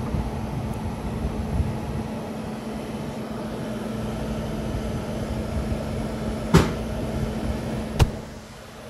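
Commercial drop-in freezer's condensing unit (compressor and condenser fan) running with a steady hum. Two sharp knocks, about a second and a half apart, come near the end.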